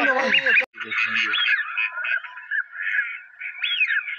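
A dense chorus of wetland animal calls: many short, overlapping, high chirping calls that rise and fall. A man's voice is heard at the start and cuts off abruptly about two-thirds of a second in.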